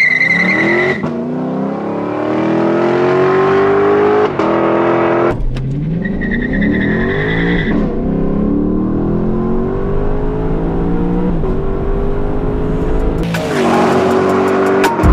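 Lexus LC 500's naturally aspirated 5.0-litre V8 under hard acceleration, its pitch climbing and dropping back at several upshifts. A high tyre squeal sounds near the start and again around six to eight seconds in.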